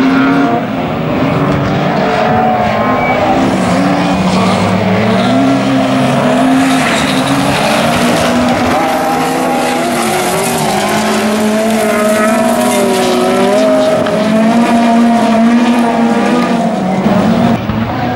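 Rallycross cars racing past at full throttle, their engines revving, the pitch repeatedly climbing and dropping with gear changes and lifts.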